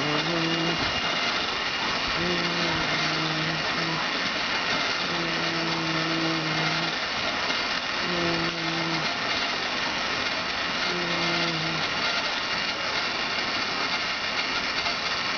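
Battery-driven motor of a Tornado Beystadium toy stadium spinning its dish, a steady whir, with a low hum that comes and goes about five times.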